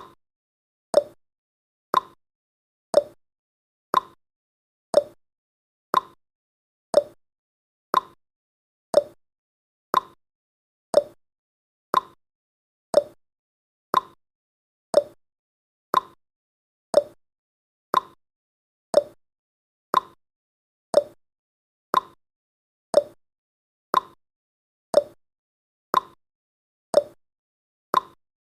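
Countdown timer's clock-style tick-tock sound effect, one short tick every second, alternating between a higher and a lower tick.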